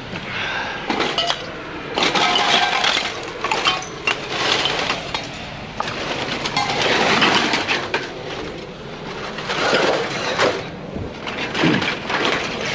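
Pieces of scrap metal clanking and clattering as they are handled and tossed, a run of separate hits, some of them ringing briefly.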